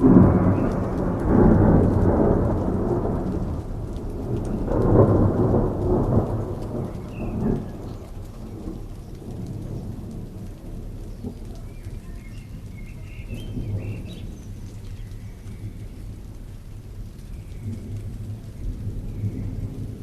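Thunderstorm: a thunderclap breaks right at the start and rolls on for a few seconds, and a second rumble swells about five seconds in. Steady rain falls throughout.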